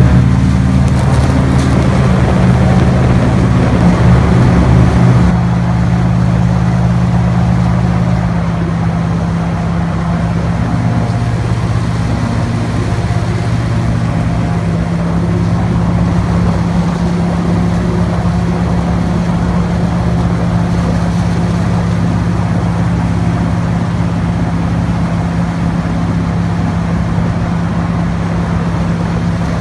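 Airboat's engine and air propeller running steadily, a loud low drone. It drops a little about five seconds in and holds a lower, even note after about eight seconds.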